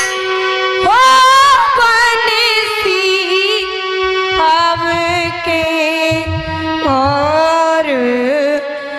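A girl singing the sakhi, the opening couplet of a jikdi bhajan, in long held notes with vibrato over a harmonium. The melody steps to a new note about a second in, again after four seconds and near seven seconds.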